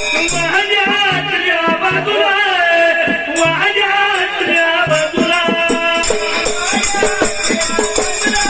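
Dhangari ovi folk music: voices singing a wavering melody over a fast, steady beat of drum and small ringing hand cymbals.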